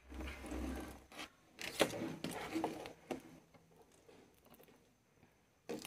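Close handling noise of fingers working stranded wire ends and small parts: a few short bursts of scraping and rustling in the first three seconds, then quiet.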